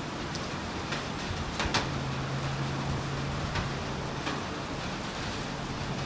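Gentle rain falling, a steady hiss with a few sharp drops striking a nearby surface, the loudest about two seconds in. A faint steady low hum runs underneath for part of the time.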